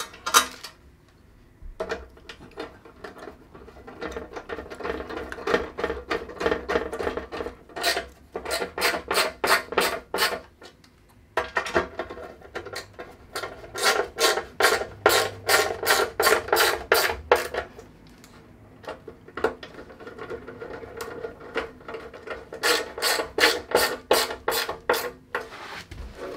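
Machine screws being driven by hand with a screwdriver into the tapped, threaded aluminium front part of a TV pedestal stand: runs of quick, even clicks with short pauses between them.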